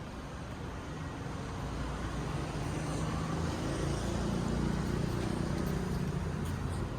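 A motor vehicle running past with a low engine hum and steady rumble, swelling to its loudest midway and then easing off.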